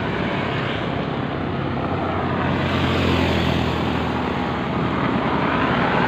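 Steady wind and road noise from riding a bicycle along a highway, with the low engine drone of passing traffic swelling about halfway through.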